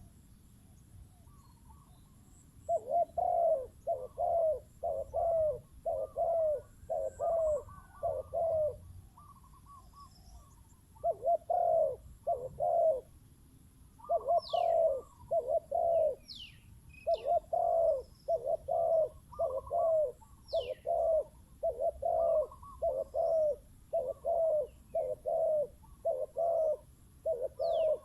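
Spotted doves cooing in long runs of short, deep repeated notes, starting about three seconds in and pausing briefly twice. A few thin, high falling whistles from another small bird come through in the middle.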